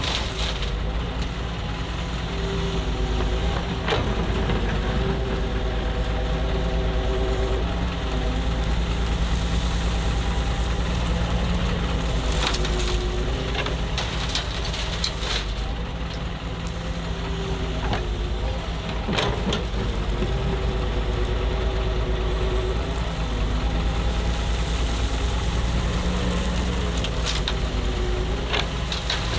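Doosan DX140W wheeled excavator's diesel engine running under hydraulic load, its pitch rising and falling as the machine works. Sharp clatters and knocks of stone come several times, clustered in the middle and once near the end.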